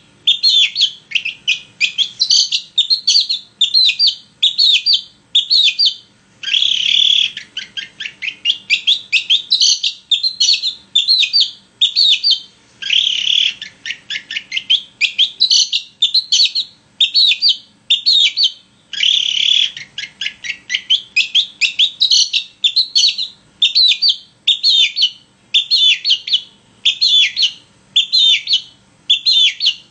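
Long-tailed shrike (cendet) singing in full voice: a fast run of short chirps, two to three a second, broken three times by a longer, harsher burst lasting about a second.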